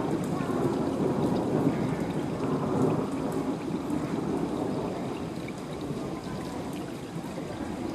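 Heavy rain falls steadily, with a low rumble of thunder that slowly dies away.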